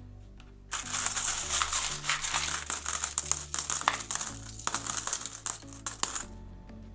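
Loose metal coins clinking and jingling together as a hand rummages through a tub of mixed world coins, a dense run of clinks lasting about five seconds and stopping near the end. Soft background music underneath.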